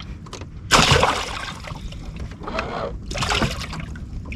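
Water splashing: one sudden loud splash about a second in, then two smaller splashes, over a steady low rumble.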